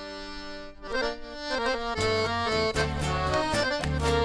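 Accordion playing traditional Uruguayan folk music: a held chord, then a melody about a second in, with bass and a steady rhythm joining about two seconds in.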